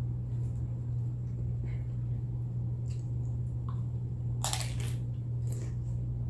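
Tortilla chips being bitten and chewed, with scattered crisp crunches and a louder, longer crunch about four and a half seconds in, over a steady low hum.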